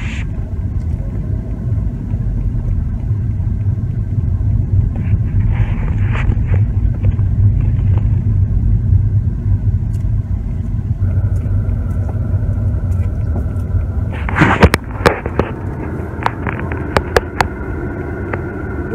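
Car running, heard from inside its cabin: a steady low rumble throughout, with a cluster of knocks and clicks in the last few seconds.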